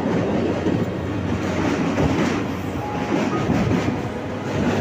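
Passenger train coaches running at speed over a girder bridge, heard from an open coach window: a steady rumble of wheels on rails with repeated clacks.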